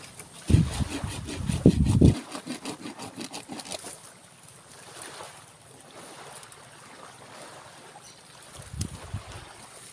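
Wind buffeting the microphone in heavy gusts for the first two seconds, over a steady seaside hiss. Through the first few seconds comes a run of short scraping and knocking strokes from digging a santigi shrub out of beach sand. A few soft thumps follow near the end.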